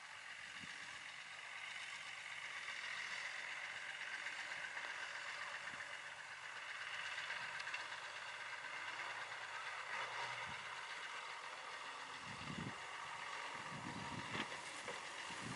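Engine of a distant loaded Shaktiman truck running steadily as it crawls along a hillside dirt track, heard as a faint even drone. A few low thuds come near the end.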